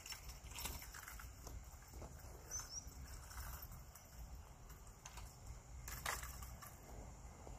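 Wind rumbling on the microphone, with scattered small clicks and rustles of fishing rod and tackle being handled; a sharper click about six seconds in.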